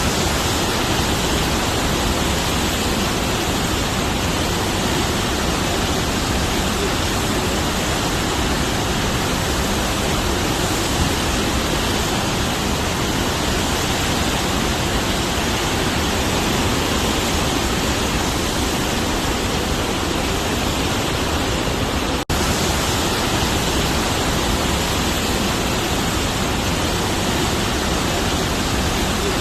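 Heavy rush of a great volume of storm water pouring through a hydroelectric power plant: a loud, steady, unbroken wash of noise, cut off for an instant about 22 seconds in.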